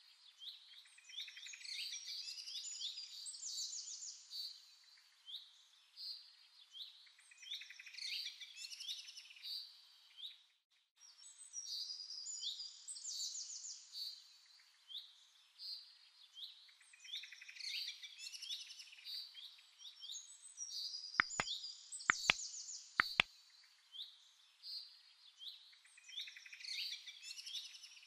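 Birds chirping in repeated bursts of quick, high calls, cutting out briefly about ten seconds in. Three sharp clicks about a second apart come about three-quarters of the way through.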